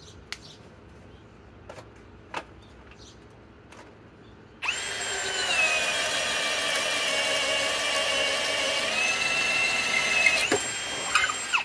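Ryobi PBLHM101 brushless hammer drill in low gear (speed one) boring a 1-inch Speedbor spade bit through a wooden board. The motor starts suddenly about four and a half seconds in and runs steadily under load with a slightly wavering pitch, then slows near the end, picks up briefly and stops.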